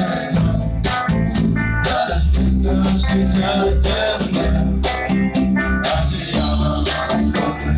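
A band playing a cover song: guitar, bass and drums with a steady beat, with no lyrics.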